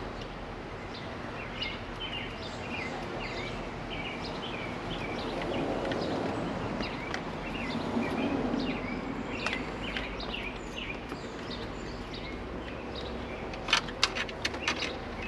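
Small birds chirping repeatedly in the background, with a low rushing sound that swells and fades in the middle. Near the end comes a quick cluster of sharp clicks.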